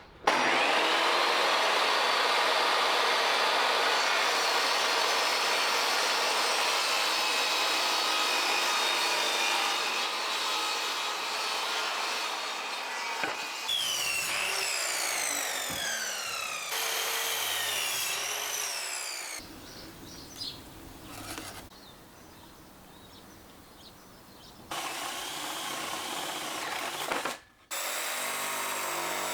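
Electric power saw spinning up suddenly and cutting through plywood, then winding down with a falling whine around the middle; it runs again near the end.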